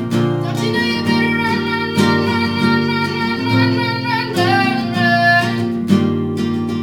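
Acoustic guitar strummed in a steady rhythm while a woman sings long held notes over it; the voice drops out about five and a half seconds in, leaving the guitar.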